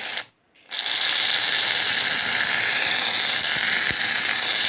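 Shaving foam hissing out of an aerosol can: a short spurt, a brief break, then a long steady hiss as the foam is dispensed.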